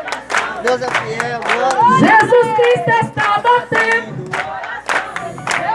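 Congregation singing and calling out praise together, with hand clapping through it.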